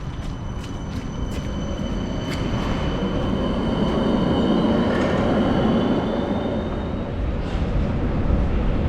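Tram running on its rails: sharp clicks of the wheels over the rail joints, and a high, thin wheel squeal. The running noise grows louder in the first few seconds and stays up.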